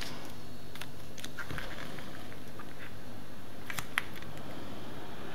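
Hands handling paper sticker sheets and pressing a sticker onto a planner page: faint paper rustles and light taps, with one sharp tick about four seconds in, over a steady low hum.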